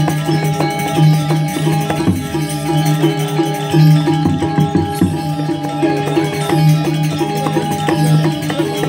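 Balinese gamelan music: ringing metal percussion plays a fast, even pattern over a steady low tone.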